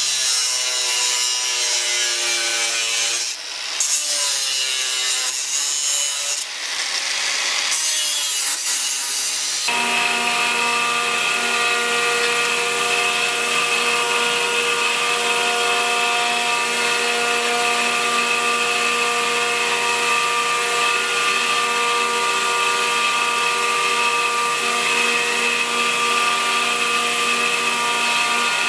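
Angle grinder cutting through steel sheet, its pitch wavering as the disc bites, broken by a few abrupt cuts. About ten seconds in it gives way to a belt grinder running at a steady pitch while a steel plate is ground against the belt.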